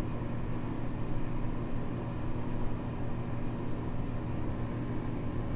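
Steady low motor hum with a faint hiss above it.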